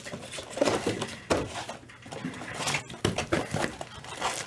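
Trading card packs and cards being handled in gloved hands: a string of short rustles and taps.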